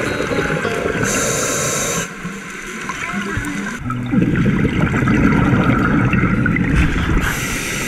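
Scuba diver breathing through a regulator underwater: a hissing inhale about a second in, a long bubbling exhale from about four seconds, and another hissing inhale near the end.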